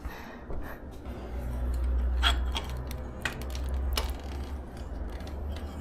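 A few light metallic clicks and clinks of bicycle fork and headset parts being handled, over a low rumble of handling noise.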